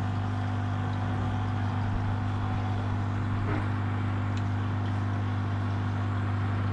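Steady low hum of running aquarium equipment, with a faint hiss over it.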